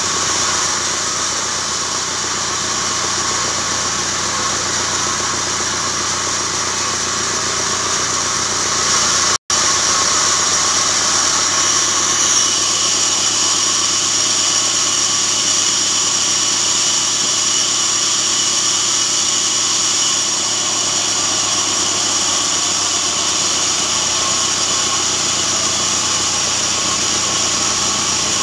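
Band saw resaw machine running steadily with a constant high-pitched whine, splitting timber. The sound drops out for a split second about nine seconds in.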